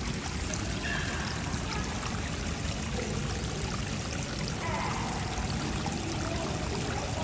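Water pouring steadily from a pipe over rocks into a small pool, a continuous splashing trickle.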